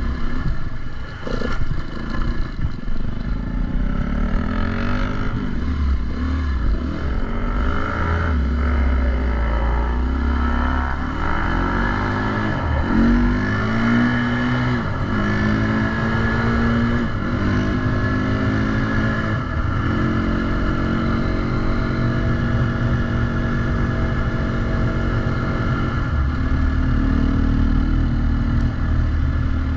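Dirt bike engine under way, its pitch climbing and dropping repeatedly as it revs up through the gears, then running at a steady pitch from about twenty seconds in.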